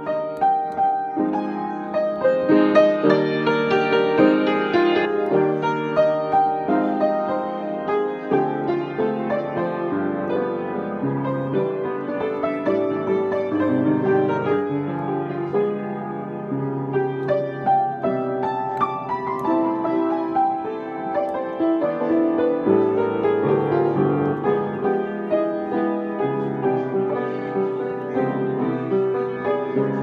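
Background piano music, a gentle melody of many notes played steadily.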